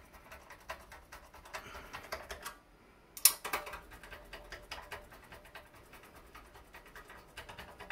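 Screwdriver driving a screw into a hard drive in a metal server drive cage, giving a run of small clicks and ticks. There is one sharper metallic click about three seconds in.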